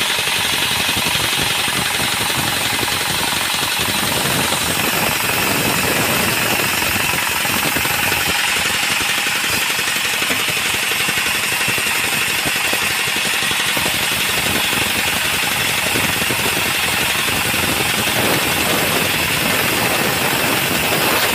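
Sawmill saw running and cutting through a mahogany log: a steady, loud machine sound with a high sawing band that holds throughout.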